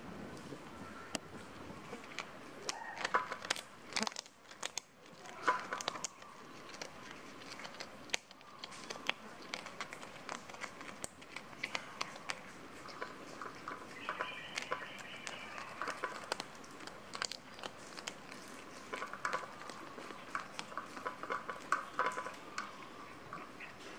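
Cat chewing and crunching on fish bones: a run of small crackling clicks that come in several bunched bursts.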